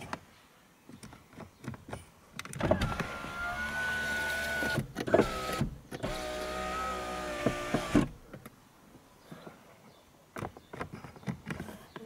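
VW Golf Mk5 electric window motor running twice, each run about two to three seconds, with a steady whine and a short stop and click between the runs. The second run is pitched slightly lower than the first.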